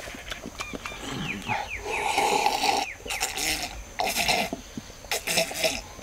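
A man eating noisily: mouth smacking and chewing, broken by loud breathy huffs and grunt-like exhalations.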